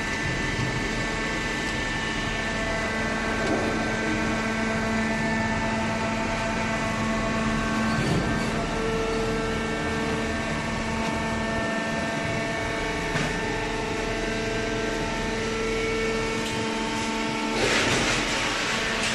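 Semi-automatic hydraulic carton baler running: a steady machine hum with several held whining tones, and a short burst of hissing about a second and a half before the end.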